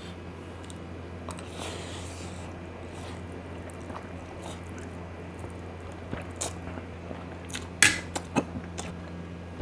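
Noodles being sucked in and chewed close to the microphone over a steady low hum, with a few sharp wet smacks and clicks in the last few seconds, the loudest about eight seconds in.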